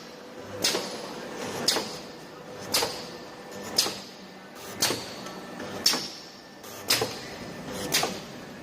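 Wire welding machine running through its cycle, with a sharp clack about once a second over a steady hum.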